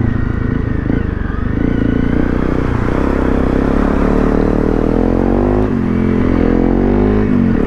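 Honda CRF250 Rally's single-cylinder four-stroke engine running under throttle off-road, its revs rising and falling, with two brief drops in the engine note near the end.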